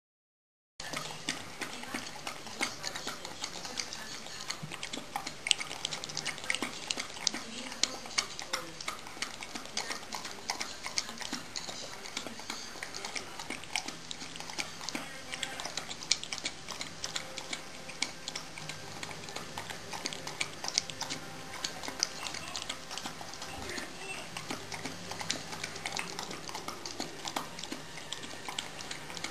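Rhodesian Ridgeback lapping yogurt out of a bowl, starting about a second in: a steady run of quick, wet licking clicks from the tongue against the yogurt and bowl.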